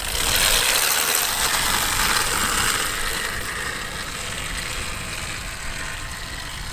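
Husqvarna EE 5 electric dirt bike setting off, with a mechanical drivetrain and chain clatter and the noise of its tyres on dirt and no engine sound. It is loudest over the first few seconds, then eases off a little.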